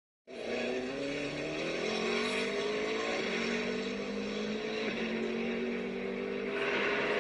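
Racing car engine running at high revs, its pitch drifting and stepping a few times. It starts abruptly a moment in.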